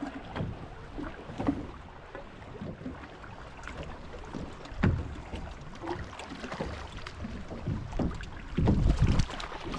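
Handling noise aboard a fishing boat: scattered knocks and clicks over a low rumble of wind on the microphone and water, with a sharper knock about five seconds in and a busier patch of bumps near the end.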